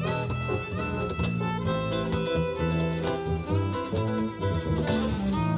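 Live band music: a fiddle carries the melody over an acoustic guitar, with low backing notes underneath.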